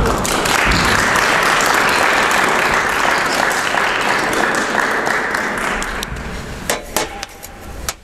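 A small congregation applauding, the clapping dying away after about six seconds, followed by a few sharp knocks.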